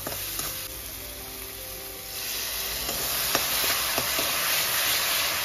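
Spice masala sizzling in a hot metal kadai while a metal ladle stirs and scrapes it, with a few sharp clicks of the ladle on the pan. About two seconds in the sizzle swells into a louder hiss as water is added to the frying masala.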